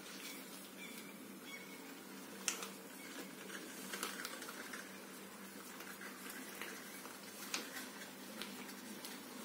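Latex rubber squeaking and rustling as a long black latex glove is pulled on and worked over the hand, with a few sharp snaps or squeaks about two and a half, four and seven and a half seconds in. A faint steady hum sits underneath.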